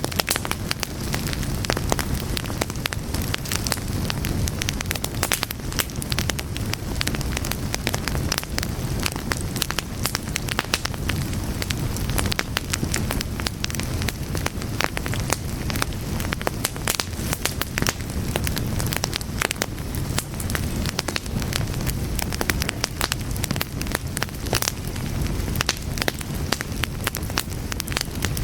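Fire crackling: a steady low rumble of flames under dense, irregular pops and snaps.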